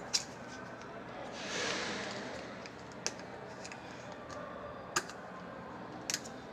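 Hard plastic anti-theft tags being handled: a few sharp, separate plastic clicks, a doubled one near the end, with a brief rustle about one and a half seconds in.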